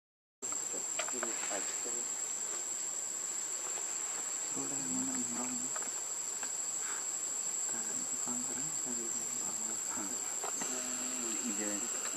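Steady high-pitched insect chorus of crickets or cicadas, running without a break, with faint low voices now and then.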